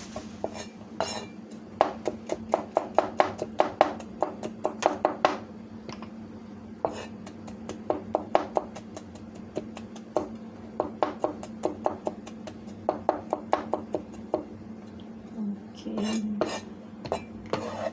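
Metal kitchen utensil striking and scraping against a pot or bowl in quick runs of sharp clinks and knocks, several a second, broken by short pauses, over a steady low hum.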